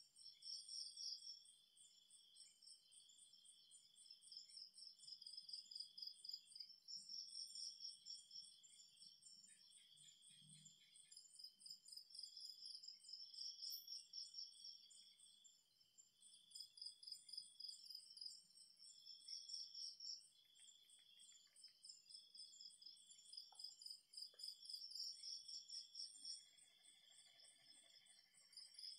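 Faint night chorus of crickets, trilling in rapid pulses at several high pitches that swell and fade.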